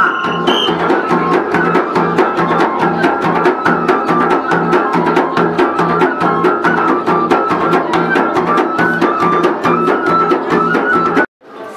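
Traditional Flores ensemble music: frame drums and percussion beaten in a fast, even rhythm under a flute melody. The music stops abruptly near the end.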